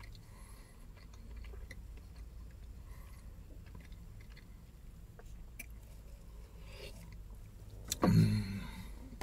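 Quiet chewing and small mouth and cup sounds over a low steady hum in a car cabin. About eight seconds in there is a short hummed 'mm'.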